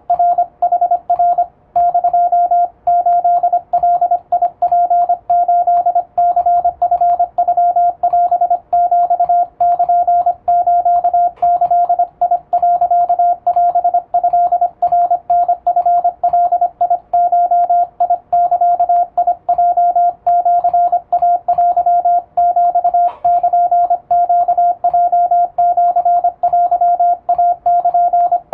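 Morse code tone keyed with an electronic keyer, sending Japanese Wabun Morse plain text at a fairly fast speed. A single steady pitch switches rapidly on and off in short dots and longer dashes, with brief gaps between characters.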